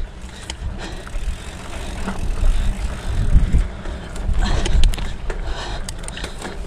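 Hardtail mountain bike rolling downhill on dirt single track: tyre noise over dirt and rocks, with a run of sharp clicks and rattles from the bike over bumps, mostly in the second half. Wind rumbles on the microphone throughout.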